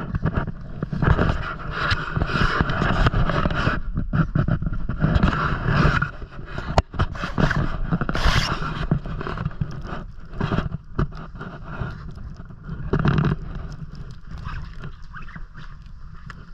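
Close handling noise: a nylon parka rustling and rubbing against the camera microphone while a kitten is carried, with one sharp click about seven seconds in.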